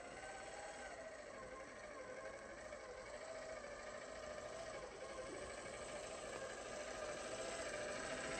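Traxxas TRX-4 RC crawler on Deep-Terrain Traxx track units crawling, its small electric motor and geared drivetrain whining steadily along with the clatter of the tracks, growing louder as it comes closer.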